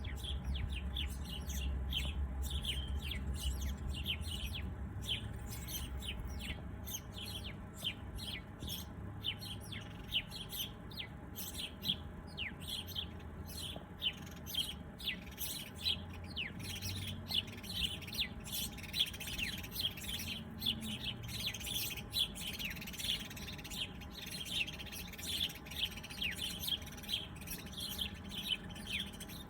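A chorus of small birds chirping without pause: many short, high chirps, often dropping in pitch, overlapping one another. A low rumble sits under them for the first several seconds.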